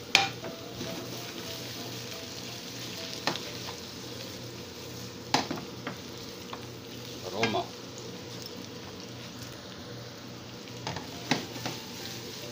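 Sliced onion, ginger, chili and garlic sizzling in olive oil in a ceramic-coated frying pan while being stirred, with the utensil clicking and knocking against the pan a few times.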